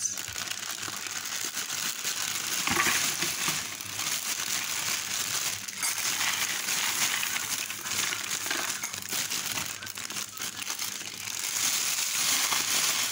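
Clear plastic bag of corn flakes crinkling continuously as hands squeeze and shake it, the flakes rustling inside.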